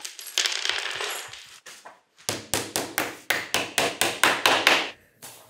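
A hammer tapping a small nail into a chipboard panel: about a dozen quick, even taps, roughly five a second, starting about two seconds in. A brief noise comes before them.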